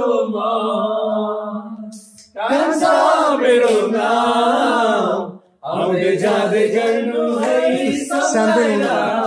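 A man singing loudly with no instruments, in long held phrases broken by two short pauses about two and five and a half seconds in.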